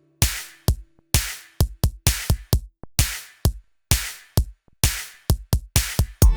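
Electronic music stripped down to a sparse drum-machine beat: deep kicks that drop quickly in pitch alternate with noisy snare or clap hits, with gaps between them. A faint low held note stops about two and a half seconds in.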